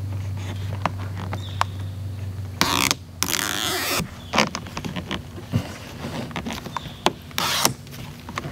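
Red backing liner being peeled off the adhesive tape of an in-channel window visor, in noisy ripping pulls about three seconds in and again near the end, among light clicks and taps of hands on the plastic visor. A low steady hum runs under the first few seconds, then stops.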